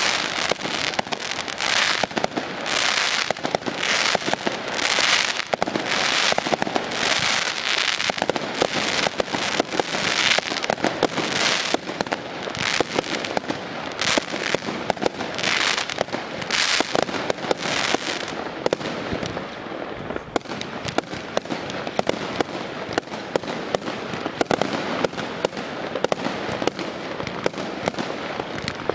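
Aerial fireworks going off in quick succession: a string of hissing, crackling bursts about one or two a second, turning to denser sharp crackling pops about two-thirds of the way through.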